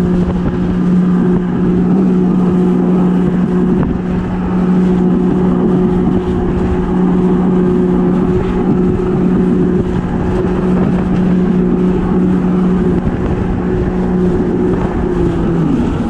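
Yamaha WaveRunner jet ski engine running at a steady high cruise, heard from the rider's seat over a constant rush of water and wind noise. Near the end the engine note drops as the throttle is eased.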